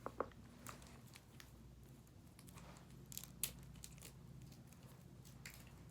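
Faint crinkling and a few scattered crackles of a chocolate square's wrapper being handled and opened.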